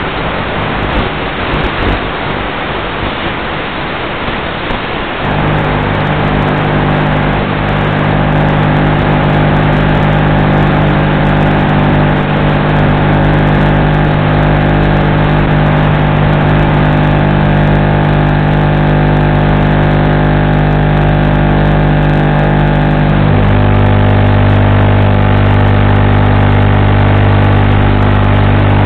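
Steady electrical buzz at a fixed low pitch with many overtones, noisy and fluttering for the first few seconds, then even, with a deeper hum joining near the end. It does not follow the plane's motor, which draws next to no current, and it stays unchanged as the plane settles into the grass: interference hum in the FPV video link's audio.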